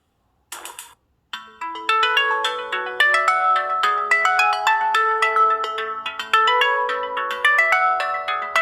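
LG G5 smartphone ringtone: after a short gap and a brief clipped fragment, a new ringtone starts about a second and a half in, a quick melodic tune of many short pitched notes.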